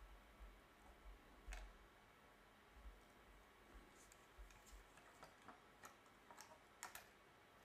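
Faint, irregular small clicks and taps of hands and a tool handling a plastic multimeter case, against near silence.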